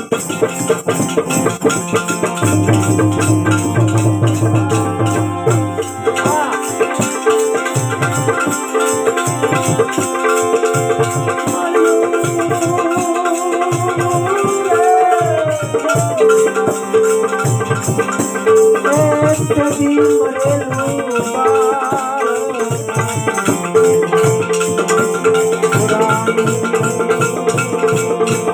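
Instrumental interlude of devotional bhajan music: a fast, even rhythm on rattling hand percussion under held notes, with a wavering melody line coming in around the middle.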